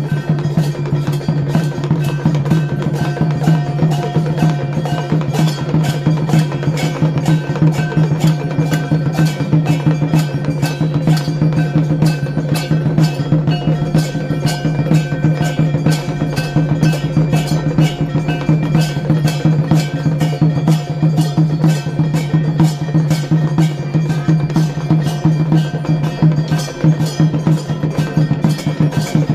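Temple bells and struck percussion in a fast, steady rhythm of about three strikes a second, over a steady low drone.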